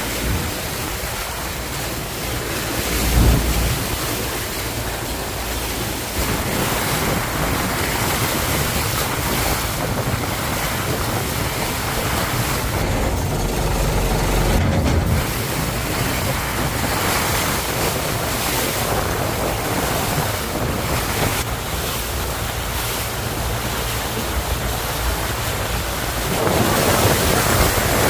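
Strong wind buffeting the microphone over rushing, splashing water and waves around a river boat, with low gust thumps a few seconds in and about halfway through.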